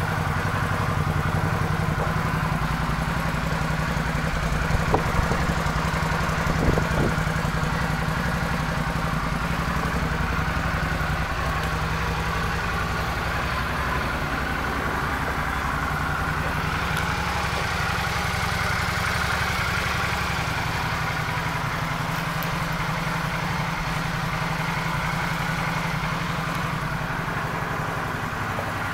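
2011 Suzuki V-Strom 650's 645 cc V-twin engine idling steadily, with a couple of light knocks about five and seven seconds in.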